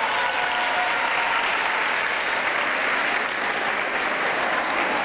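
Audience applauding, steady hand-clapping throughout.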